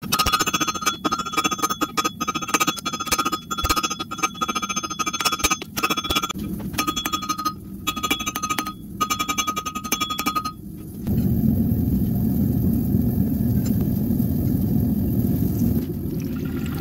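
Hammer blows on red-hot leaf-spring steel over an anvil, several a second, with the anvil and steel ringing in clear high tones between strikes. The hammering stops about eleven seconds in, and a steady low rushing noise follows.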